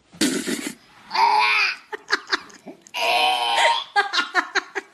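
Person laughing hard: two long high shrieking cries, then a quick run of short laughing bursts near the end.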